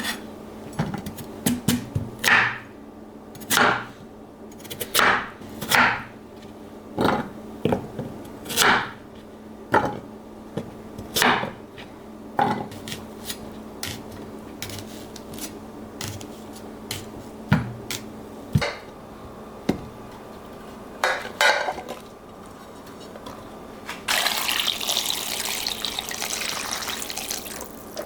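Kitchen work sounds: irregular knocks and clinks of utensils and dishes on hard surfaces, then a tap runs steadily for a few seconds near the end.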